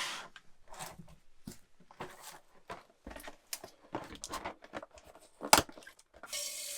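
Irregular crinkling and tearing, like papery or plastic material being handled, with one sharp click about five and a half seconds in. Near the end a kitchen faucet starts running water.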